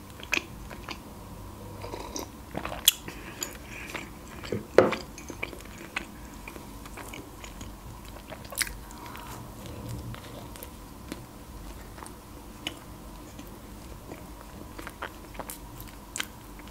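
Close-up eating of a soft iced cinnamon roll: chewing with wet mouth sounds and scattered sharp clicks, the loudest about three and five seconds in.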